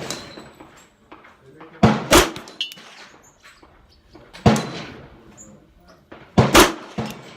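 Five gunshots with short echoing tails: a quick pair near two seconds in, a single shot at about four and a half seconds, and another quick pair near six and a half seconds.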